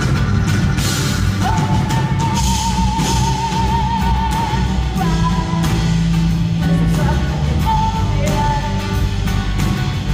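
Live music: a woman singing over strummed acoustic guitar, holding one long note with vibrato from about a second and a half in to about five seconds in.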